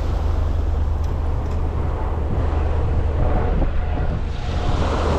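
Strong wind buffeting the microphone, a steady loud low rumble.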